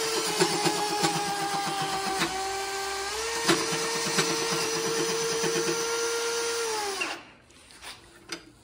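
Hand-held cordless power drill running steadily, turning a line-boring bar, with irregular clicks and rattles over the motor. Its speed sags briefly about two and three seconds in, and about seven seconds in it winds down and stops.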